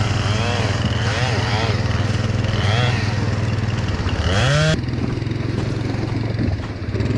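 Chainsaw running, its engine note rising and falling again and again as it is worked through wood, over a steady engine hum. About four seconds in it revs up sharply, then the higher sound cuts off suddenly, leaving the lower engine running.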